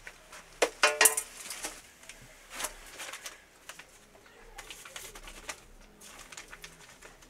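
Glass jars and other containers knocking and clinking as they are handled on wooden shelves, with short clicks and rustles throughout. The loudest moment is a brief pitched sound about a second in.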